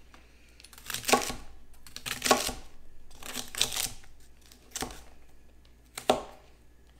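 Chef's knife chopping a bunch of fresh asparagus spears on a plastic cutting board: a crisp cut through the stalks ending in a knock on the board, about once a second.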